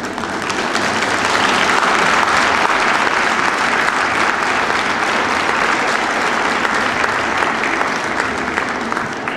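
Audience applauding, swelling in the first second and easing off near the end.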